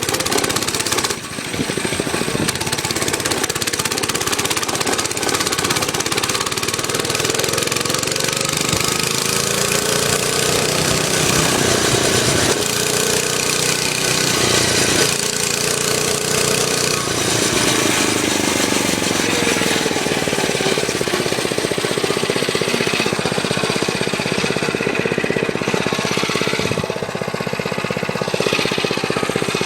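Motovox mini bike's small single-cylinder four-stroke engine running while ridden, its pitch rising and falling as the throttle opens and closes, with a brief drop about a second in.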